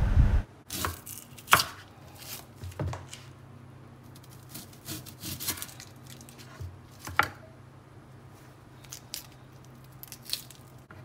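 Kitchen knife slicing a red onion on a bamboo cutting board: a dozen or so irregular, sharp taps of the blade against the board, with quieter rubbing of onion skin between cuts.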